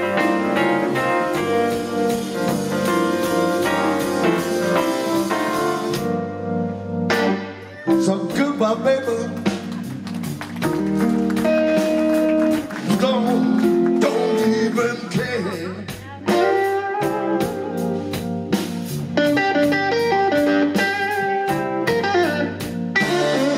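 Live blues band with electric guitar, bass, keyboards and drums playing an instrumental passage of a slow blues, a lead guitar line to the fore. The band drops away briefly twice, about seven and sixteen seconds in.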